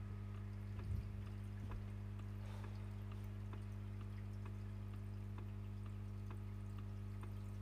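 Faint regular ticks, about two a second, like a clock or dripping, over a steady low electrical hum, with one soft thump about a second in.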